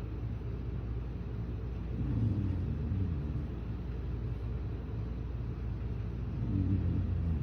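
A person snoring: two low, drawn-out snores, one about two seconds in and another near the end, over a steady low hum.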